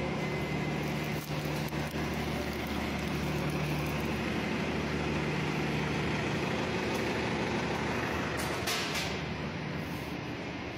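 Steady low drone of a large vehicle's engine running nearby, with a short hiss near the end.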